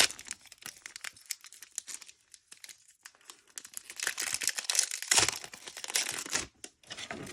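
Foil wrapper of a Pokémon TCG Rebel Clash booster pack being crinkled and torn open, with a louder stretch of tearing and crackling about halfway through.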